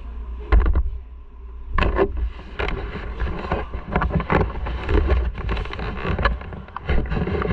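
Handling noise from an action camera being picked up and turned: irregular knocks and rubbing on the microphone over a steady low rumble. The loudest knock comes about half a second in.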